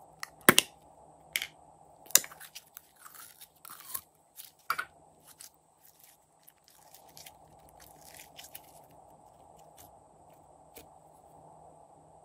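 A plastic slime tub's lid snapping open with a few sharp clicks, then slime being pulled and stretched with crackling, sticky squishes.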